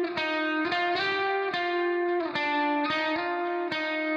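Background music led by a plucked guitar, with a new note every half second or so.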